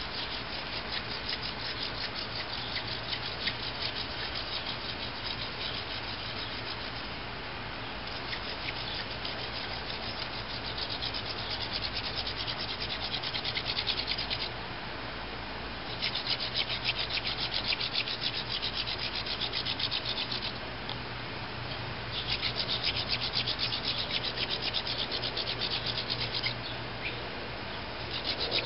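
Hand-drill friction fire: a horseweed spindle spun back and forth between the palms in a juniper hearth board, wood rubbing on wood in fast scratchy strokes. It comes in runs of several seconds with three short breaks.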